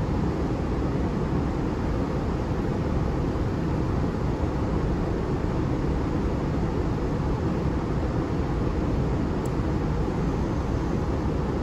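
Steady low rumble of background room noise, even throughout, with no distinct events.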